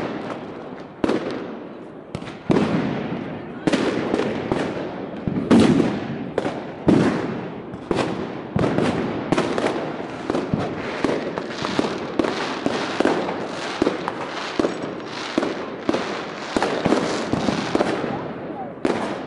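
Fireworks and firecrackers going off all around, dozens of sharp bangs each with an echoing tail, at irregular intervals and coming thicker and faster in the second half. The loudest bangs come about a third of the way through.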